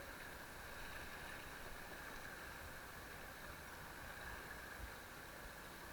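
Steady rush of river water running past a raft, with a few faint low knocks.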